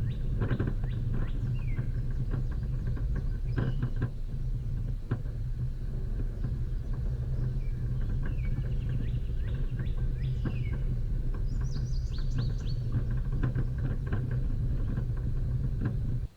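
Off-road vehicle driving along a rough dirt track: a steady low engine hum with frequent knocks and rattles from the bumpy ground, and birds chirping over it. It all cuts off suddenly at the end.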